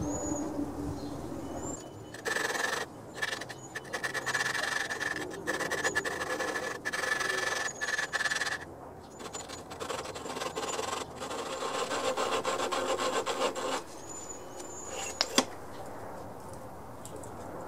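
An engine valve being hand-lapped into its seat with a suction-cup lapping stick and grinding compound in a Briggs & Stratton flathead block: a gritty grinding rub in short twisting strokes with brief pauses, stopping about fourteen seconds in.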